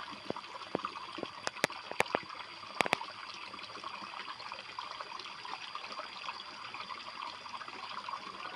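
Water trickling and splashing steadily, with a quick run of sharp clicks in the first three seconds.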